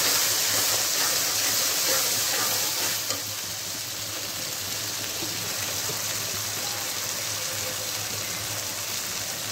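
Onions and spice pastes sizzling in hot oil in a metal kadai while stirred with a metal spatula. The sizzle is louder for the first three seconds, then settles to a steady, lower hiss.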